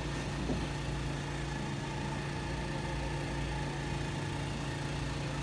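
Steady low mechanical hum of a running machine.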